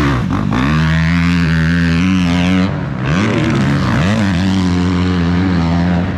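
Dirt bike engines revving under load through mud, mostly holding a steady pitch. About three seconds in the revs drop, then there are two quick blips up and down before they settle again.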